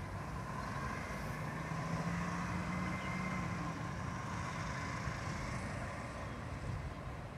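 Garbage truck engine running steadily: a low hum with a thin, steady whine above it.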